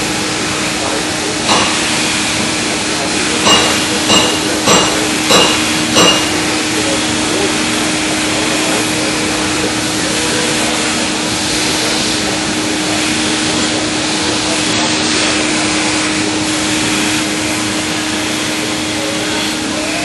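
Knife-factory workshop machinery running with a steady hum and noise, and about six sharp metallic knocks with a ringing tone, roughly half a second apart, in the first six seconds.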